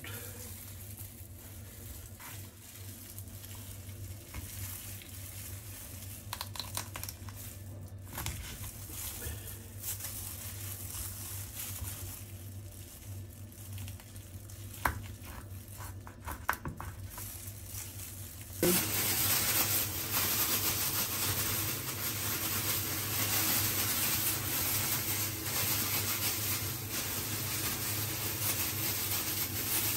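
Plastic bag crinkling, with scattered light knife clicks and scrapes as a fish is cut up on a wooden board. About two-thirds of the way in, a steady hiss starts suddenly and stays louder than the cutting to the end.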